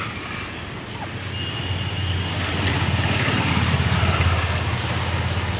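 A low rumble that swells to its loudest around the middle and then eases off, with a faint thin high tone briefly early on.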